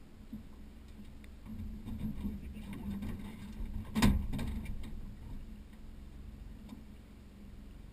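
Low steady hum on a fishing boat, with scattered small clicks and knocks of gear and one sharp knock about four seconds in.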